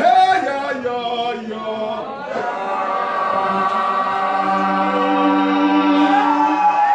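Congregation singing together, the voices moving through a phrase and then, after about two seconds, holding long drawn-out notes.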